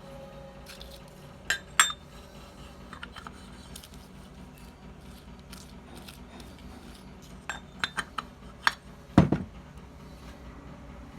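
Metal tools and parts being handled on a workbench, giving scattered sharp clinks: a pair near the start, a quick run of four around eight seconds in, and the loudest, a clink with a dull knock, about nine seconds in.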